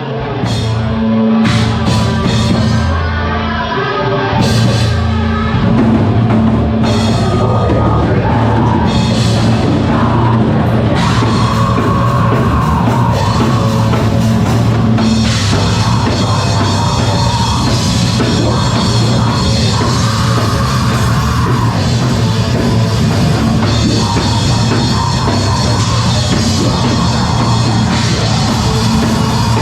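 Live heavy rock band playing loud, with a drum kit driving it, coming in at full level within the first second.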